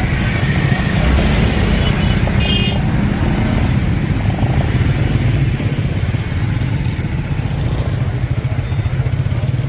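A motor vehicle's engine running steadily with a deep rumble. A short high-pitched tone comes about two and a half seconds in.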